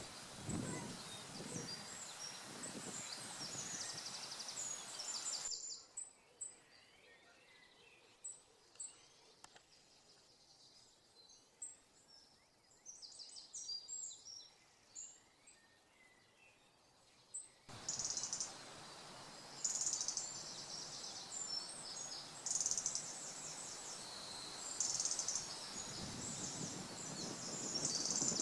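Several songbirds singing in spring woodland, short high phrases overlapping one another, over a steady background hiss. The hiss drops away about six seconds in and returns about eighteen seconds in, leaving the birdsong clear in between.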